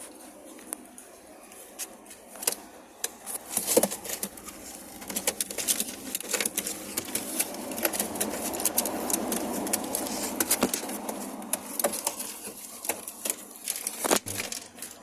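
Birds, likely pigeons, moving about: many sharp clicks and scratches, with a denser rustling stretch in the middle.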